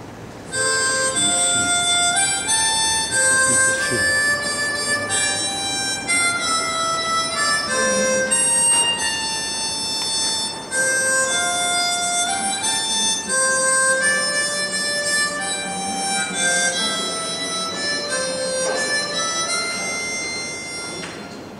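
Instrumental dance tune led by a reedy free-reed instrument, a melody of quick stepping notes. It starts about half a second in and fades out near the end.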